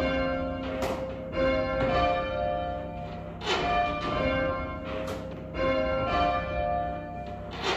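Two church tower bells rung full circle by rope, striking one after the other with a stroke about every second. Each strike rings on with a long, pitched hum.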